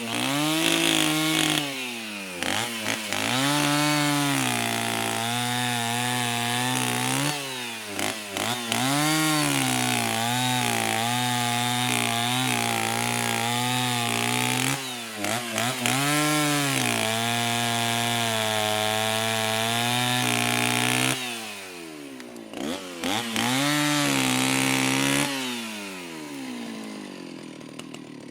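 Chainsaw engine revved up and down over and over, held at high speed for several seconds at a time between revs. Near the end it revs once more, then winds down and quietens.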